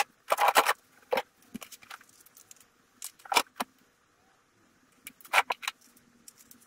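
Metal tools and parts clinking and clattering as they are handled in a plastic crate, in short clusters of sharp knocks with a quiet gap of about a second before the last cluster.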